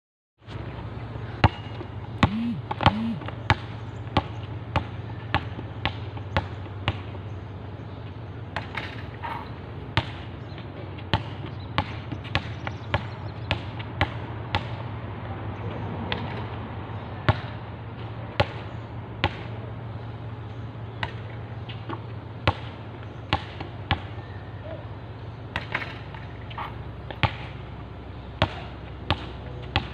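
Basketball being dribbled on an outdoor hard court: sharp bounces at an uneven pace, roughly one a second, over a steady low hum.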